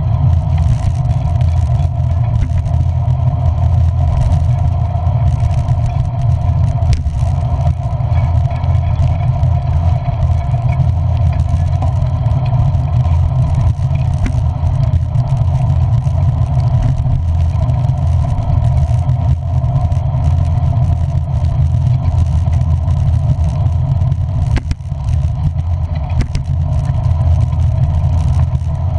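Steady engine and road noise of a moving motor vehicle: a loud, even, deep rumble with a few brief clicks.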